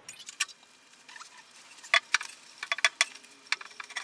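Light, irregular metallic clicks and clinks from a heated tapered roller bearing being worked onto its shaft in a Reiter KB1 air hammer, its rollers and cage rattling as it is pushed into place.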